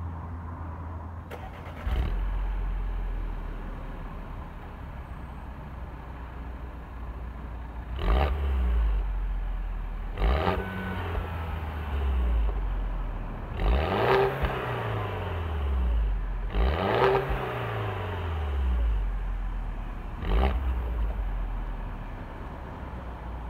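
2013 Mini Cooper S Clubman's turbocharged 1.6-litre four-cylinder idling through its stock exhaust and revved five times: two short blips, two longer revs that climb and fall back, then a last small blip.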